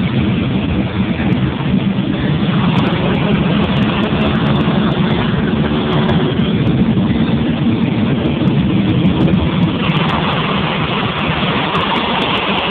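Car driving on a wet road, heard from inside the cabin: steady engine and tyre rumble, with a hiss that grows louder about ten seconds in.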